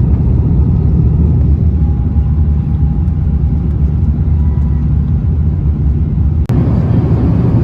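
Airbus A350-900 cabin during takeoff or climb: steady, loud low rumble of jet engine and airflow noise. The rumble breaks off for an instant about six and a half seconds in, then carries on.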